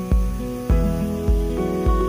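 Background music with a steady beat, a little under two beats a second, under held chords.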